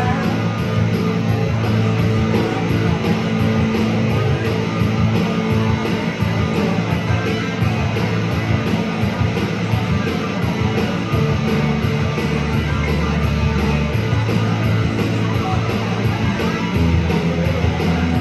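A rock band playing live, electric guitar to the fore over a moving bass line, with no singing.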